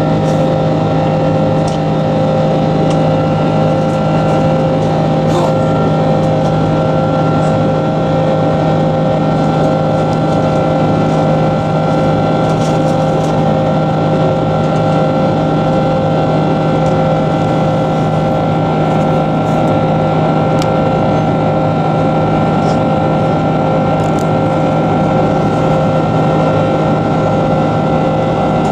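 Airbus A330-300's Rolls-Royce Trent 700 turbofan engines heard inside the cabin during the climb after takeoff: a steady roar with several steady whining tones over it.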